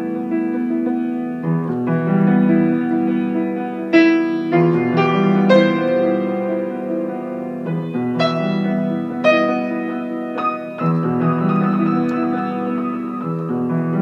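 Piano music: held chords with single struck notes over them, a run of brighter notes between about four and eleven seconds in.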